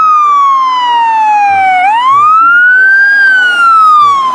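Electronic fire-engine siren wailing: one tone that slides slowly down in pitch, swoops back up about two seconds in, then slides down again.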